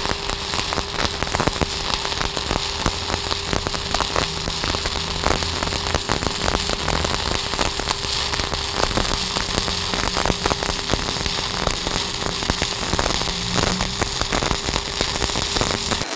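Stick welding arc from a 1/8-inch 7018 electrode at 135 amps laying a fill pass on half-inch steel plate: a continuous crackle of dense, rapid pops while the rod burns.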